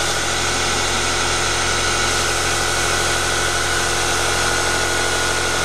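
Hercus benchtop CNC lathe turning an aluminium blank: the belt-driven DC spindle motor runs steadily on its full 180 volts with a high, even whine over a low hum, while the tool takes a cut with a hiss of spray-mist coolant.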